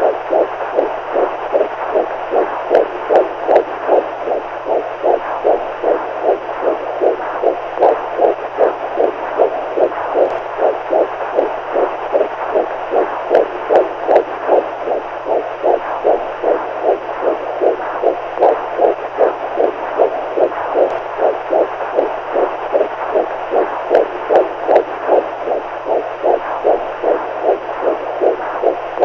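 Heartbeat sound, pulsing in a steady, even rhythm over a faint, steady low hum.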